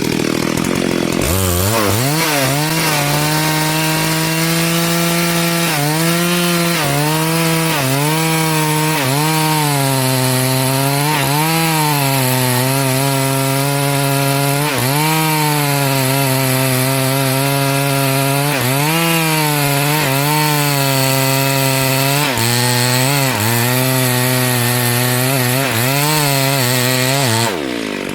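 Two-stroke chainsaw cutting wood at high revs, its engine pitch sagging and recovering again and again as the chain bites under load. It comes in about a second in and drops off near the end.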